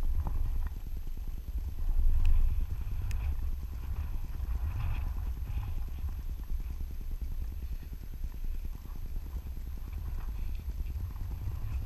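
Wind buffeting an action camera's microphone: a steady low rumble that flutters rapidly and swells about two seconds in.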